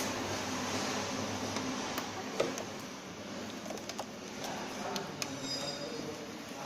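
A few sharp plastic clicks and knocks of a hose being fitted onto a beauty machine's connector, over a steady background hiss.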